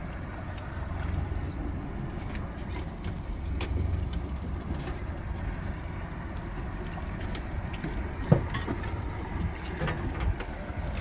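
Low steady rumble of a small boat's outboard motor under a wash of water and wind, with scattered small clicks and one sharp knock about eight seconds in.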